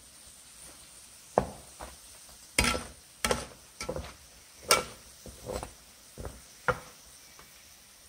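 Metal slotted spatula knocking and scraping against a frying pan while turning donuts in hot oil: about ten irregular sharp clacks, starting about a second and a half in, over a faint steady hiss of frying oil.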